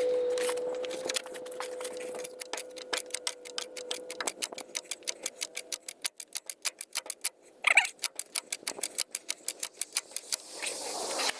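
Rapid, even metallic clicking, about four clicks a second, broken briefly by a short squeak about eight seconds in.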